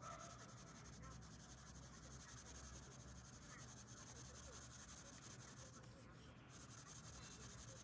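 Colored pencil shading on paper: quick back-and-forth scratching strokes. The strokes stop briefly about six seconds in, then start again.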